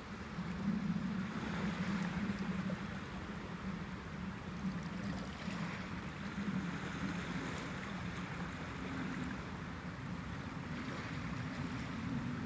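Steady outdoor ambience of wind and sea surf over a steady low rumble.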